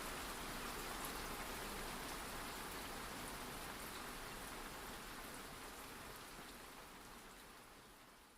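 Steady rain on a surface with faint scattered droplet ticks, gradually fading out over the second half.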